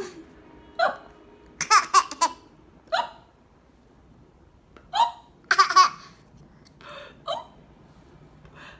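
A young child hiccupping again and again, a short sharp hic roughly every two seconds. Two bursts of laughter come in between, about two seconds in and again near six seconds.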